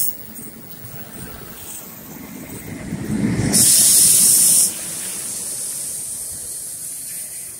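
A New Jersey Transit train of multilevel coaches passing close by with wheel-and-rail rumble. A loud hiss lasting about a second comes as the locomotive at the rear goes past, then the train noise fades as it moves away.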